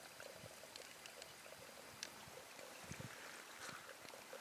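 Faint flow of river water, with a few faint scattered ticks.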